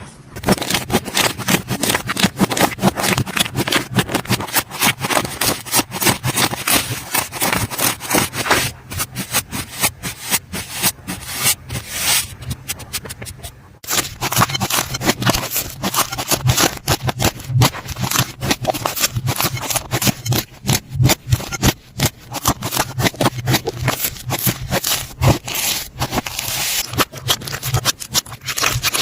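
Slime being squeezed and pressed by hand close to the microphone: a dense, continuous run of small crackling clicks and sticky pops, with a short drop in level about 14 seconds in.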